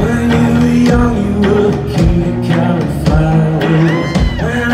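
Live rock band playing loud: electric guitar and drums with a male voice singing, a sustained sung or guitar note held near the end.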